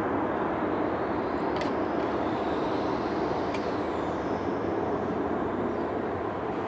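Boeing 747-400 freighter's four jet engines at climb power as it climbs away after takeoff: a steady, deep rumble that slowly fades as the plane recedes.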